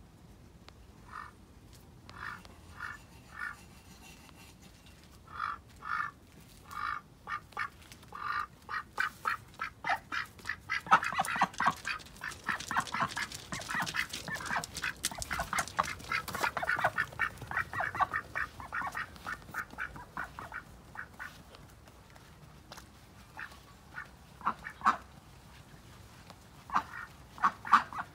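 Pekin ducks quacking: a few single short quacks at first, then a fast, overlapping run of quacks through the middle, thinning to scattered quacks near the end.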